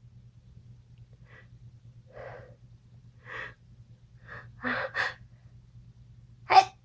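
A person's gasping, catching in-breaths building up to a sneeze: a string of short gasps that come louder and closer together, the loudest and sharpest just before the end, with the sneeze starting right at the end.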